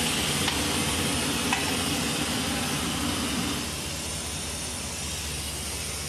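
Steady workshop noise: a hiss over a low mechanical hum, both easing down about three and a half seconds in.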